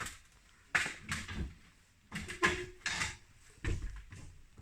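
Several short rustling and knocking noises, about a second apart, from hands-on work sealing and fastening a fireplace casing.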